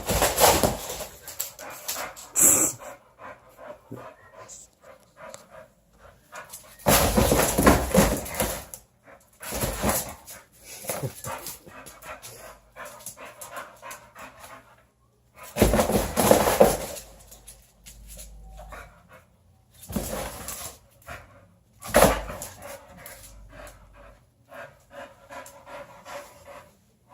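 A boxer dog barking and panting as it goes after a laser dot, in five loud bursts several seconds apart with quieter panting between them.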